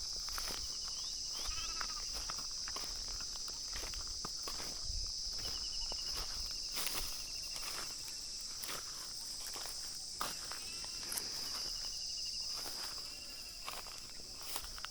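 A steady, high-pitched insect chorus of crickets or cicadas, with scattered clicks and rustles like footsteps over the ground. Brief rapid chirps come several times.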